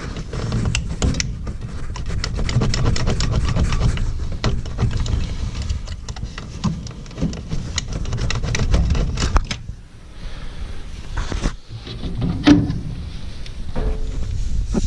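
A piece of wire scraping and clicking in the plugged negative-pressure port of a Lennox furnace's collector box as it is worked back and forth to clear the buildup, with rubbing and handling noise close to the microphone.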